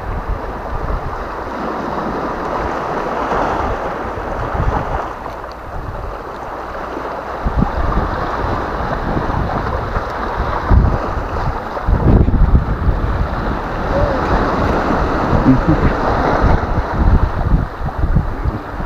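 Surf washing onto a pebble and sand shore, with wind buffeting the microphone in uneven gusts that grow stronger in the second half.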